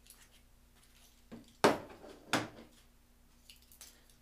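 Sharp knocks and clatter of aluminium rod rack parts being handled and fitted together: a small knock, then two loud ones about two-thirds of a second apart, each with a short ring, with lighter clicks around them.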